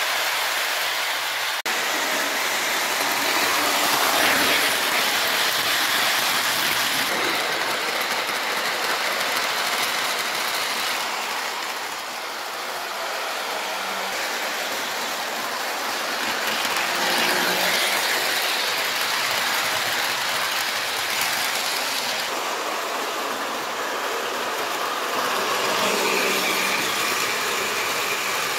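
Lionel 2350 EP5 postwar O-gauge locomotive running laps on three-rail track, pulling freight cars: a continuous whir of the motor and wheels rolling on the steel rails. It grows louder and fainter a few times as the train comes past and moves away.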